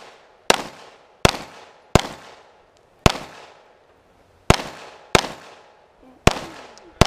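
Handgun shots fired in an uneven string, about eight in seven seconds, some in quick pairs and some with short pauses between them. Each is a sharp crack that trails off in echo.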